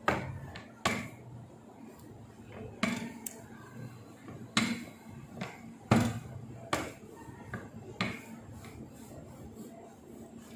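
Rolling pin working dough on a plastic rolling board, with a string of short, irregular knocks as the pin and board clack, about one a second.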